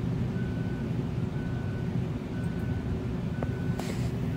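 Steady hum of an electric fan running close to the microphone, with a faint short beep repeating about once a second and a couple of light clicks near the end.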